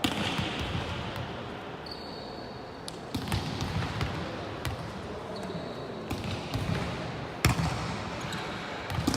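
Volleyball struck during a rally in a gym: several sharp smacks of the ball, the loudest about three-quarters of the way in, over a steady background of gym noise, with a couple of short high squeaks.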